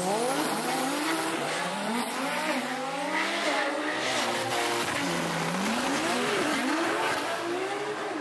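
A high-performance car's engine accelerating hard from a launch. Its pitch climbs and drops back at each upshift, several times over.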